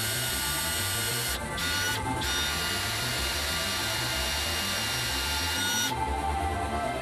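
Power drill boring a hole into a welded steel frame, the motor whining steadily as the bit cuts through the steel. It eases off briefly about a second and a half in, and again near the end.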